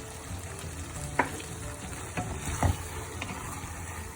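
Linguine in green curry sauce sizzling in a pan while being stirred, with two sharp knocks of the utensil against the pan, about a second in and again past halfway.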